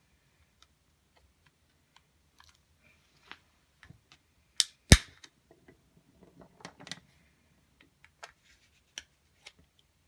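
Plastic case of a Samsung RMCTPH1AP1 smart TV remote being pried apart with a card: scattered light ticks and scrapes of plastic on plastic, and two sharp snaps close together about four and a half seconds in as the case's clips give.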